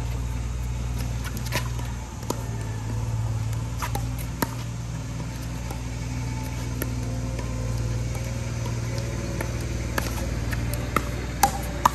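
Pickleball paddles striking the plastic ball during a doubles rally: sharp pocks at irregular intervals, over a steady low rumble.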